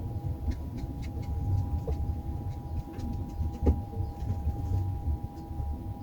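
Steady low machine hum with a faint constant whine, overlaid by scattered light clicks and taps, one sharper tap a little past halfway.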